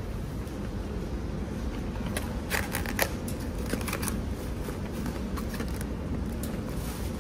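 Crinkly rustling and a few sharp clicks, thickest from about two and a half to four seconds in, over a steady low background rumble.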